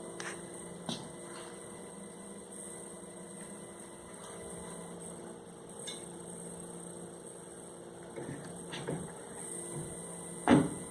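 Metal foundry hand tools being handled: a few light clinks and one louder clank near the end, over a steady electrical hum.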